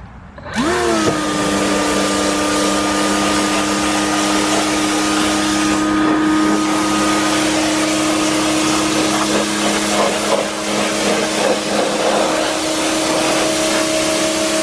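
Greenworks Pro 60V battery pressure washer starting up about half a second in: its electric motor and pump whine rise quickly to a steady pitch and hold there, over the hiss of the water jet spraying.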